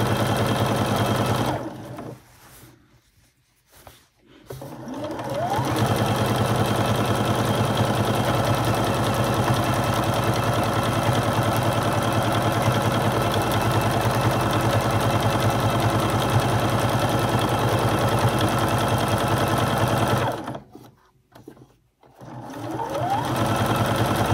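Computerized sewing machine stitching a hem with a steady running whine. It stops about two seconds in and pauses for a couple of seconds, then speeds up again with a rising whine. It runs steadily until near the end, when it stops and starts up once more.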